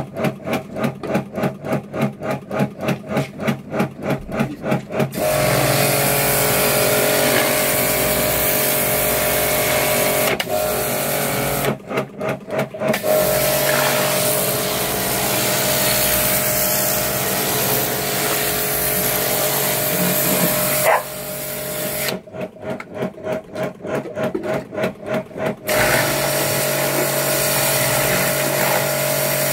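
Electric Kärcher K4 Full Control pressure washer running, its motor and pump humming steadily under the hiss of the water jet striking terracotta nest bowls. Three times the sound changes to a rapid pulsing, about four beats a second: at the start, briefly near the middle, and again a few seconds before the end.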